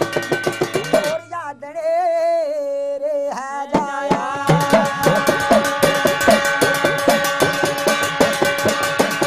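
Jagar music: a man's voice holds a long, wavering sung note over strokes of a hudka, the Kumaoni hourglass drum. From about four and a half seconds in, the hudka plays fast, even strokes, about four to five a second, under steady ringing metallic tones, the drumming that sets the possessed medium dancing.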